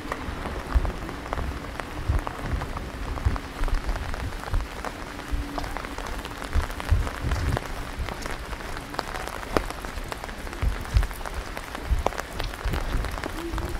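Rain falling steadily, with many scattered individual drops ticking sharply close by, and irregular low thumps underneath.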